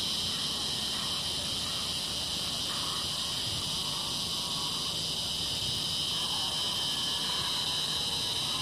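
Steady chorus of insects, a continuous high-pitched buzz that holds level without a break.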